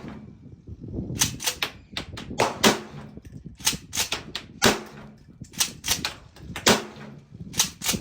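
Mossberg 590S 12-gauge pump-action shotgun firing repeatedly, a shot about every two seconds, with the clack of the pump slide being worked between shots.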